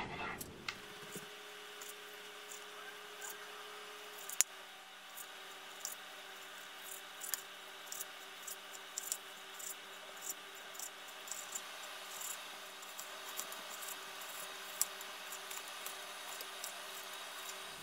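Kitchen knife slicing thin strips from a partly frozen steak on a plastic cutting board: faint, irregular taps and scrapes as the blade goes through and meets the board, over a faint steady hum.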